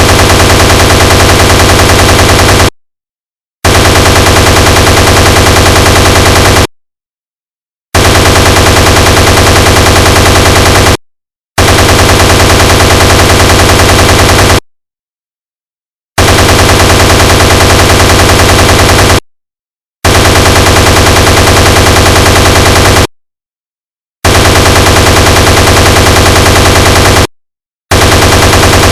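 Sound effect of a Browning M2 .50 caliber heavy machine gun firing rapid, very loud bursts of about three seconds each, eight in all, with dead silence between them.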